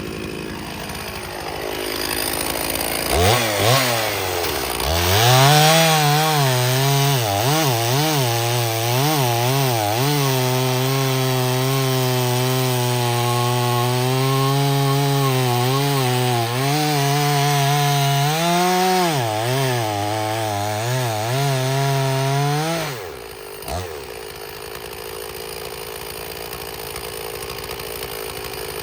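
Stihl chainsaw revved up about three seconds in and held near full throttle through a long cut in seasoned oak, its pitch wavering as the chain bites. About six seconds before the end it drops back to a lower idle.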